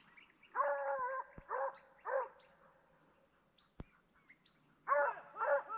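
Hunting dogs baying: a long wavering bay about half a second in, two short bays after it, then two more near the end. A steady high insect drone runs underneath.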